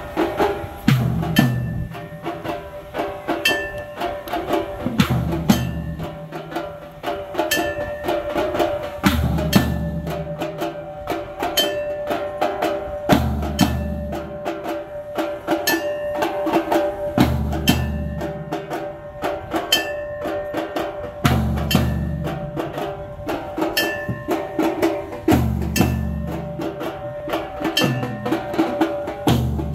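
Temple aarti music: drums and other percussion struck in a fast, steady rhythm, with a deep low stroke about every four seconds.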